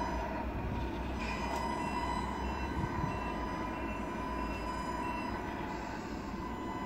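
Remote-control Tamiya Scania tractor truck reversing, with a steady, even mechanical hum. About six short, evenly spaced high beeps from a reversing alarm sound from about two to five seconds in.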